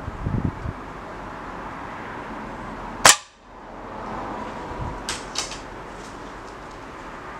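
Budget air rifle firing a single shot about three seconds in, a sharp crack, followed a couple of seconds later by a few fainter clicks.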